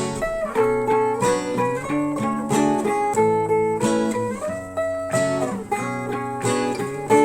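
Background instrumental music of plucked notes and chords, each struck sharply and left to ring.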